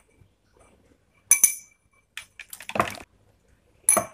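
Sharp clinks and taps of a small plastic cup against a plastic beaker of water as a dose of powder is tipped in: one loud clink about a second in, a quick cluster of lighter taps near the three-second mark, and another clink near the end.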